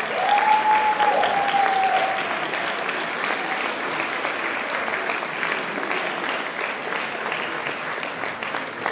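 Audience applauding, with one drawn-out cheer over the clapping in the first two seconds. The applause slowly dies down.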